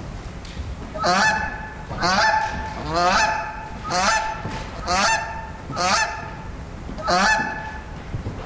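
A goose honking: seven loud honks about a second apart.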